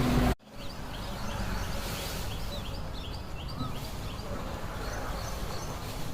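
Steady low outdoor background noise with small birds chirping faintly, many short high chirps clustered through the middle, after an abrupt cut from louder sound.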